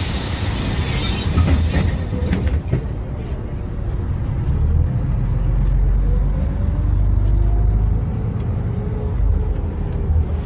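Inside a LiAZ 5292 low-floor city bus under way: the steady low rumble of its MAN natural-gas engine with road noise, and a faint whine that rises in pitch several times in the middle seconds. A burst of hiss at the start.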